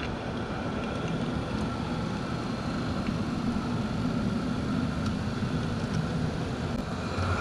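HO scale model train running along the track, heard close up from a camera riding on it: a steady rumble of wheels and motor with a faint steady whine above it.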